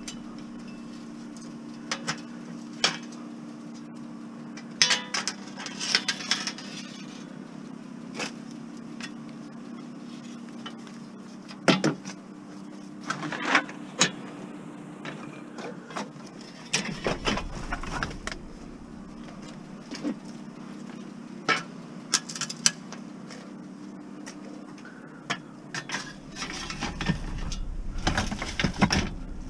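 Scrap metal being loaded into a packed car: scattered clanks and knocks of metal against the car and its load, with rustling of plastic bags, over a steady low hum.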